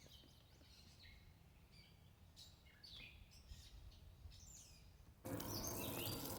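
Birds chirping now and then over a quiet background; about five seconds in, a steady hiss starts abruptly, fitting the pump shower's spray nozzle being sprayed.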